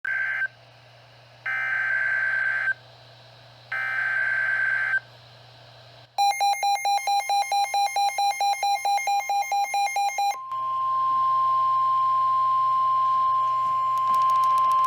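Emergency Alert System SAME header: three short bursts of warbling digital data tones. They are followed by about four seconds of rapid electronic beeping at one pitch. From about ten seconds in comes the single steady NOAA Weather Radio warning alarm tone, announcing a severe thunderstorm warning.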